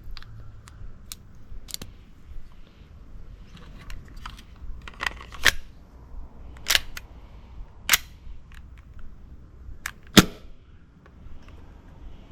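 Sharp metallic clicks and clacks from handling a gas gel blaster pistol replica of a Glock 19, a dozen or so irregular clicks with several louder snaps, the loudest about ten seconds in.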